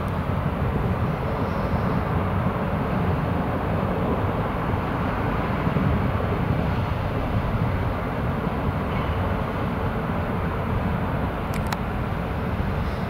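Steady low rumble of a large ro-ro passenger ferry's machinery as it manoeuvres slowly into its berth, with a brief click near the end.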